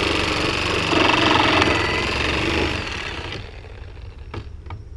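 Skil reciprocating saw with a Milwaukee nail-embedded wood-cutting blade, running as it cuts through the nails between a pallet board and its stringer. The cut grows louder about a second in, and the saw stops a little past halfway.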